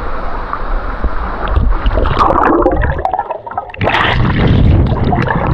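Water churning and gurgling around an action camera taken underwater, with a sudden loud rush of water about four seconds in.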